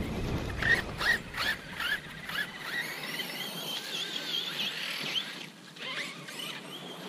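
Brushless electric motors of RC monster trucks whining. The pitch rises and falls with the throttle: several quick blips in the first two seconds, then a wavering whine that dips a little past the middle.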